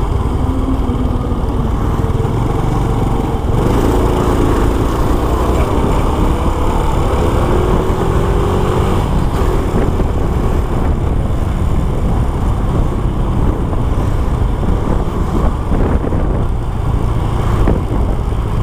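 Honda Supra X 125 single-cylinder four-stroke engine running under way, its pitch rising gently through the first half as the bike pulls away, over a heavy steady wind rumble from riding.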